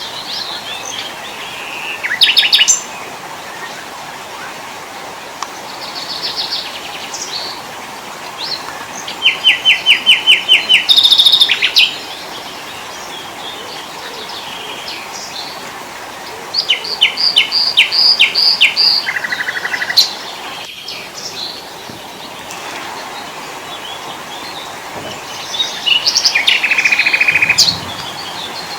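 Small forest songbirds singing: bouts of fast trills of rapidly repeated notes and quick chirps, coming in turn every few seconds over a steady background hiss.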